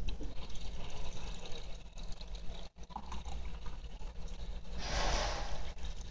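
Water running from a faucet into a plastic cup, loudest for a moment about five seconds in, over a steady low hum.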